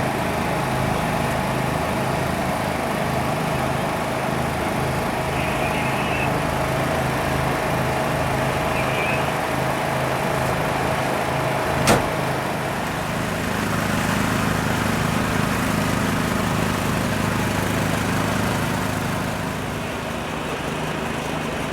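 An engine running steadily. It picks up and runs louder just after a single sharp click about halfway through, then settles back down near the end.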